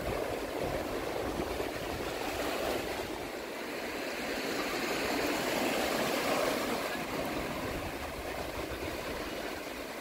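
Small North Sea waves breaking and washing up the sandy shore: a steady wash of surf that swells about halfway through, with an uneven low rumble beneath it.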